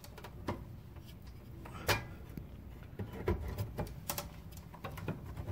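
Plastic body and prongs of a NOCO GENIUS1 charger's wall plug knocking and clicking against a wall outlet as it is worked into the socket. A few scattered faint clicks, the loudest about two seconds in.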